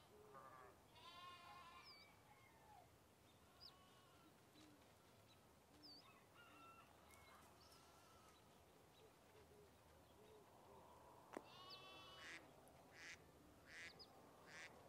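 Faint animal calls: a series of short, pitched cries scattered over a low background hiss, bunched near the start and again in the last few seconds.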